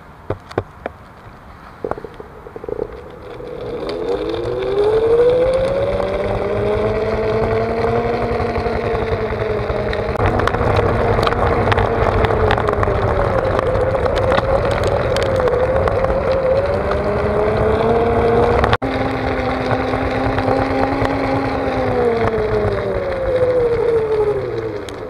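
Onewheel electric board's hub motor whining under a steady hiss of tyre noise on paving stones. The whine climbs in pitch as the board speeds up a few seconds in, holds and wavers, dips and rises again, then falls as the board slows near the end.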